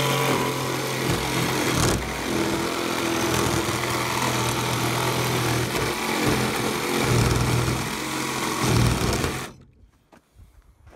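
Cordless sheet sander running against a plywood panel, a steady buzzing motor with the pad scrubbing the wood; it cuts off suddenly near the end.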